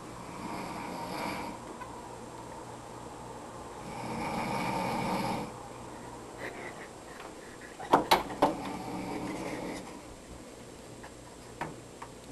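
A man snoring in his sleep: three slow snores a few seconds apart, with a few sharp clicks about eight seconds in.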